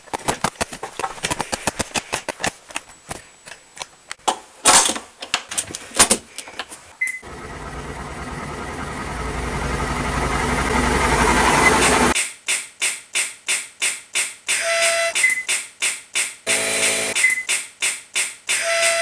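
Sounds of cystic fibrosis therapy machines, such as a chest percussion vest and a nebulizer compressor, chopped into a rhythmic beat. It opens with rapid clicking pulses, then a machine's rushing hum swells for several seconds and cuts off suddenly, followed by even rhythmic pulses with a few short beeps.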